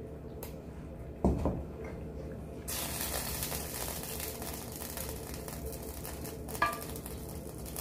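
A cooking pot set down on the stovetop with a knock, then a steady sizzle that starts suddenly about two and a half seconds in and keeps going. A short clink of a serving spoon comes near the end.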